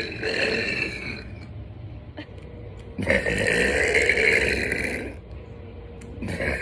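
A woman burping loudly: one burp trailing off in the first second, a long burp of about two seconds starting about three seconds in, and another beginning near the end.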